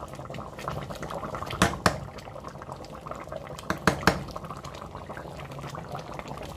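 Pot of thick peanut sauce with oxtail bubbling steadily at a simmer, with sharp taps, two just under two seconds in and three more around four seconds in.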